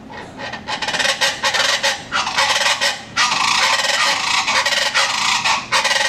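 Chachalaca calling loudly: a harsh, rapidly repeated chatter that builds over the first second, breaks briefly about three seconds in, then resumes and stops abruptly at the end.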